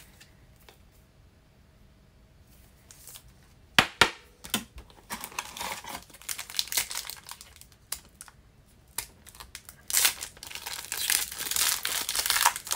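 Foil wrapper of a Donruss Optic Fast Break basketball card pack crinkling as the pack is handled and torn open. It is quiet for the first few seconds, with two sharp snaps about four seconds in. Crinkling follows and is densest in the last three seconds, as the foil is ripped apart.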